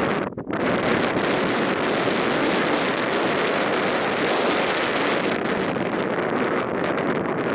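Strong wind buffeting the microphone as a dense, steady roar, with a brief lull just under half a second in.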